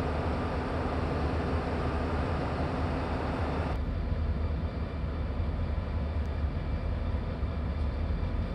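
Diesel locomotive engine running with a steady low rumble. A louder, higher noise over it drops away about four seconds in, and the rumble carries on.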